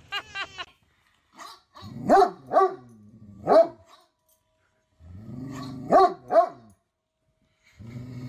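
A child giggling briefly at the start. Then a dog vocalizes in three bouts, each a low grumble rising into two or three short, upward-swooping barks.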